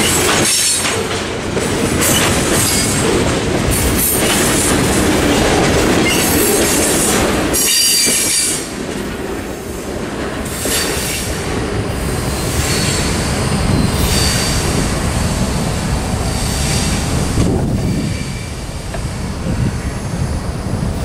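Freight train of covered hopper cars rolling past on the rails; the last car clears about eight seconds in, and the train's sound then eases off as it moves away.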